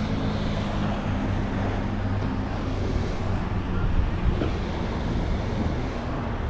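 Steady wind and water noise on an open boat, with a low, even hum from the boat's motor running underneath.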